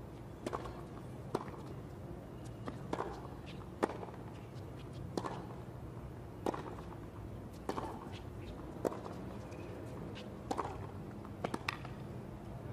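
Tennis ball struck by rackets in a serve and baseline rally on a hard court: about ten sharp hits, one every second or so, over a faint steady background hum.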